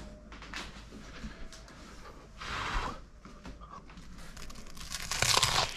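Crunching bites into a crisp, toasted French bread pizza, with two louder crunches about two and a half seconds in and again near the end, and small clicks between.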